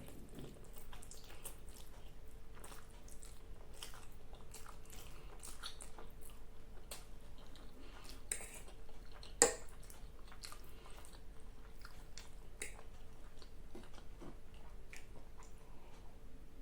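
Close-miked chewing of spicy black bean ramen noodles: a run of soft wet mouth smacks and clicks, with one sharp click about nine and a half seconds in.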